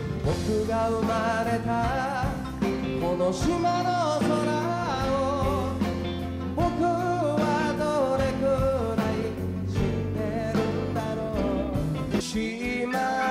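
A live band playing, with a man singing the lead melody over keyboard, guitars and drums.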